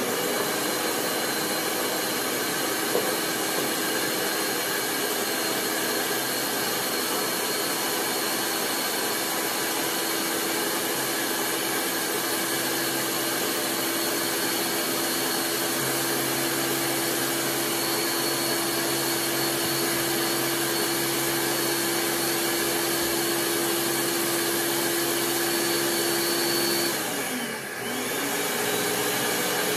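Countertop blender motor running steadily with a constant whine. Near the end the motor's pitch drops and it briefly stops, then starts running again.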